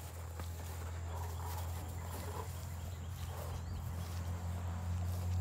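A steady low hum with a few faint, short animal calls over it.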